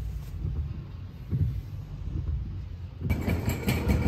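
Low, steady rumble of a car's cabin on the move, with a few soft bumps. About three seconds in it cuts abruptly to a brighter, busier indoor ambience.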